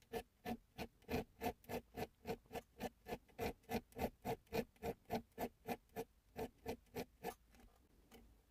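Needle file scraping in quick, even hand strokes, about four a second, cutting file work into the spine of a slip joint pocket knife's liners. The strokes stop about seven seconds in.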